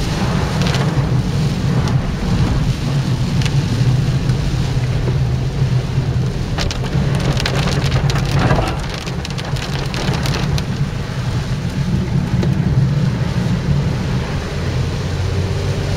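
Heavy typhoon rain with a steady low rumble under it and a patter of drops that thickens into sharp crackles about seven to ten seconds in.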